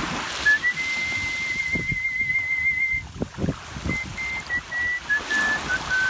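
A person whistling a melody in the artistic-whistling style: one long high note with vibrato, then a run of shorter notes stepping down in pitch.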